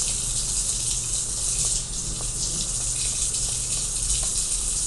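Egg-dipped bread frying in a pan, giving a steady sizzle.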